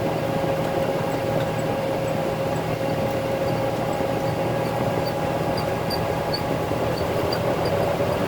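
Concrete mixer truck's diesel engine running steadily while driving: a low drone with a steady whine over it.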